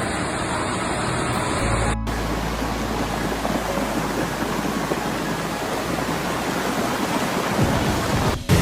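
Loud, steady rush of floodwater, an even roar with no distinct tones. It is interrupted by abrupt cuts about two seconds in and near the end.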